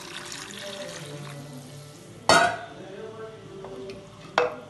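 Tap water running into a steel vessel, fading out early. Then two sharp metallic clanks with a short ring, about two seconds in and again near the end, the first the louder, as the steel vessel is handled beside the clay pot.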